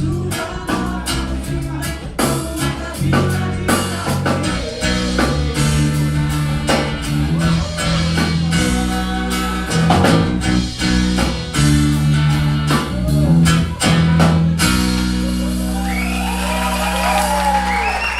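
Live band with singer, alto saxophone, bass and drum kit playing the closing bars of a Brazilian soul song, with steady drum hits, then settling onto a long held final chord about fifteen seconds in.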